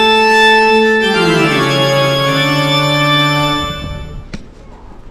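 Organ sting: a loud held chord, then about a second in the notes step downward and the music fades out around four seconds in.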